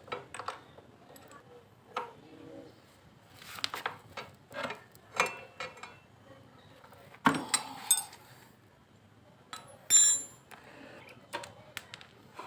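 Irregular metallic clinks and knocks of tools and bolts on a motorcycle's front brake caliper as it is unbolted and pulled free, the loudest clanks about seven and ten seconds in.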